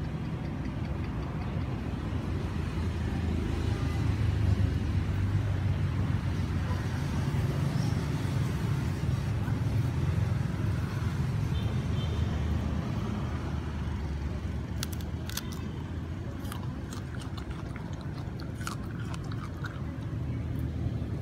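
A steady low rumble, with a run of sharp clicks and crunches over the last several seconds: a long-tailed macaque biting and chewing right next to the microphone.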